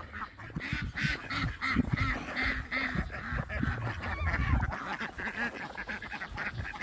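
A mixed flock of ducks and chickens calling, many short quacks and clucks overlapping, as the birds crowd around expecting to be fed.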